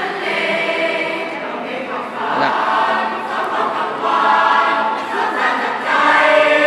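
Student choir singing in harmony, in held phrases that grow louder near the end.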